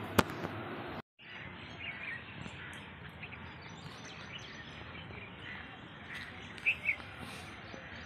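Birds chirping in short scattered calls over a steady outdoor hiss, with two louder chirps near the end. A single sharp click comes right at the start, and the sound drops out briefly about a second in.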